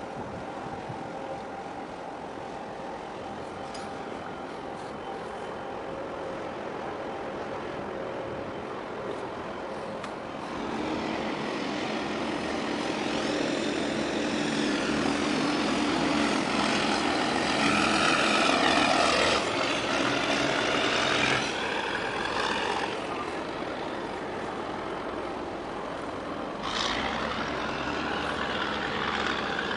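Steady low drone of the passing container ship YM Together's engines and machinery. A louder engine noise swells about a third of the way in and drops off sharply about two-thirds through, then rises a little again near the end.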